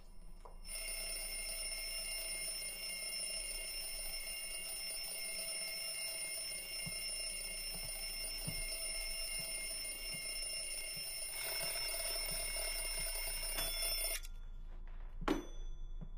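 Alarm clock ringing steadily for about thirteen seconds, then cutting off suddenly. A single dull thud follows near the end.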